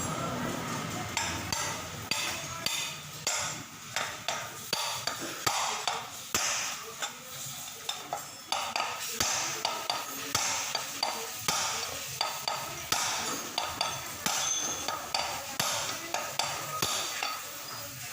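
Sharp metallic taps and clicks of hand tools on a scooter's CVT driven pulley as its worn 6902 bearing is worked out, coming irregularly, about one or two a second.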